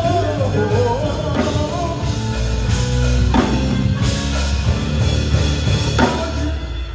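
Live gospel band playing loudly with heavy bass and drum kit, striking big accented hits about every two seconds, while a singer's voice glides on a wordless note in the first second or so.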